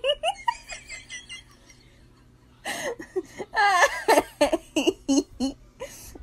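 A person laughing and giggling in short, quick bursts, falling quiet for about a second in the middle, then laughing again with a long rising and falling cry.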